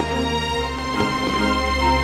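Background music: held notes over a steady low bass, with a few soft hits.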